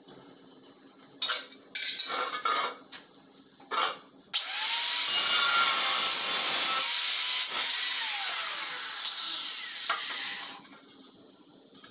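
Handheld angle grinder with a cutting disc slicing through a ridged stone-look wall tile for about six seconds, starting about four seconds in. The motor's pitch rises as the disc spins up and falls as it winds down before the noise stops suddenly. Before the cut there are a few short scrapes and taps.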